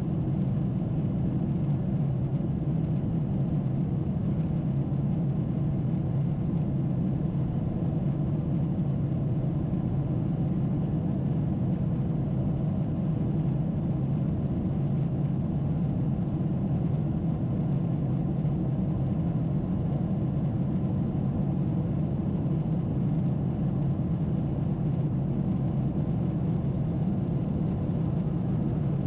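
Steady drone inside the cabin of a Boeing 747-8 in its climb: the GEnx engines and the airflow over the fuselage make an even, unbroken low rumble.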